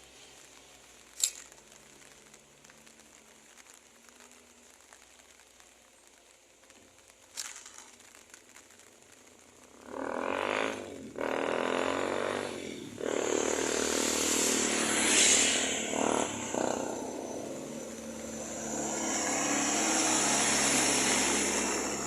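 A large bus passing close by: engine and tyre noise swells in about halfway through, peaks, eases and swells again. Before that the road is fairly quiet apart from two sharp clicks.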